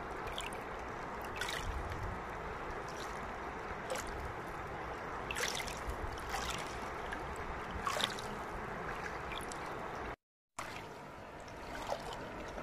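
Shallow river water running and lapping over a pebble shore: a steady rush with a few small, brief splashes. The sound drops out for a moment about ten seconds in.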